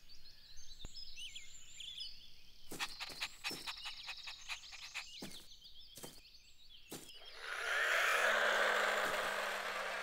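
Cartoon garden sound effects: faint high bird chirps and a few short clicks, then, about seven and a half seconds in, the steady whirring of a toy remote-controlled car's motor swells up and keeps going.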